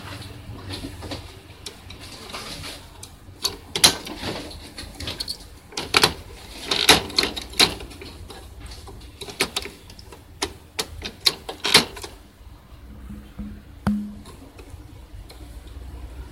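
Handling noise: irregular plastic clicks, taps and rustles as the ink tubes of a continuous ink supply system are pushed and fitted around an inkjet printer's carriage, with a faint low hum underneath.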